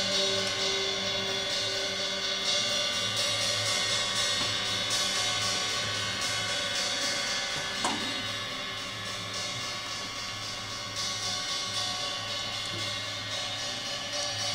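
Improvised live percussion: a sustained, shimmering wash of cymbals over steady low drone tones, with a short rising glide about eight seconds in.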